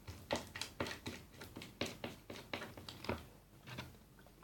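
Freshly activated glitter-glue slime being mixed and worked in a bowl, a run of short sticky clicks about three a second that stop shortly before the end.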